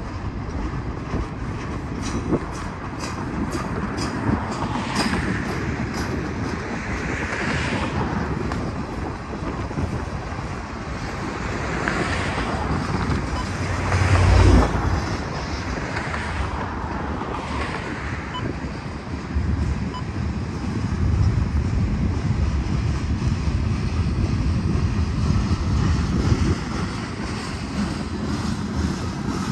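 Freight cars of a Norfolk Southern manifest train rolling past: a steady rumble of wheels on rail, with wind buffeting the microphone and a loud low thump about halfway through.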